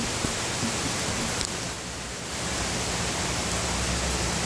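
Heavy downpour of rain falling in a steady hiss.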